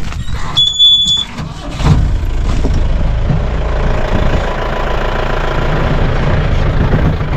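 Off-road jeep's engine starting about two seconds in and then running steadily, heard from inside the open cabin. A short high beep sounds about half a second in.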